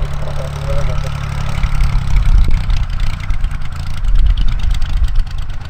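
Cessna 175C Skylark's geared six-cylinder piston engine and propeller running at low taxi power as the plane rolls past. The steady engine note changes about two seconds in.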